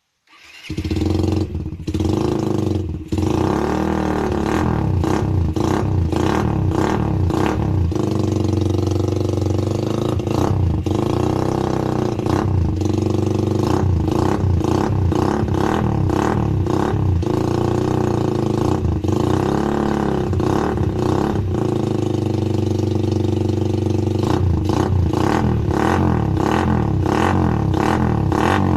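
Suzuki Raider R150 motorcycle engine running through an aftermarket open-pipe exhaust, idling with repeated throttle blips that make the pitch rise and fall. It starts abruptly about half a second in and cuts off suddenly near the end.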